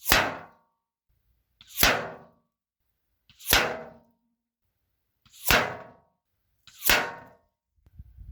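FX Impact M3 air rifle in 9 mm firing five sharp shots, about 1.5 to 2 seconds apart, each with a short ringing tail.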